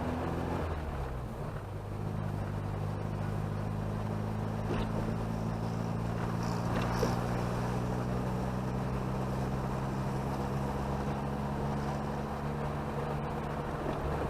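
Chevrolet Chevette's engine running steadily under way with road noise; the engine note rises, then drops about a second in, as at a gear change, and then holds steady.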